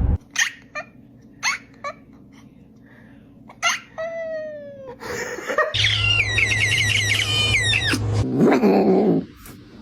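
A cat's squeaky vocal sounds: a few brief squeaks, a falling cry, then a long wavering high-pitched call and a lower cry near the end.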